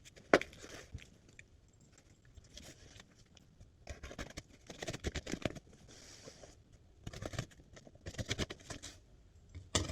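A sealed cardboard shipping box being opened by hand without a knife: scraping and tearing at the packing tape and crinkling cardboard in irregular bursts, with one sharp knock about a third of a second in.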